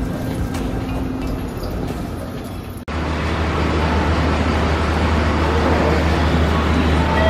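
Train noise: a steady rumble that breaks off abruptly about three seconds in and gives way to a louder, steady low rumble.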